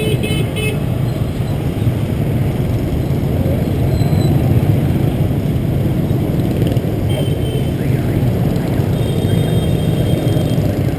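Motor scooter traffic: a loud, steady engine and road rumble, with a quick run of horn beeps at the start and more short horn toots about seven seconds in and near the end.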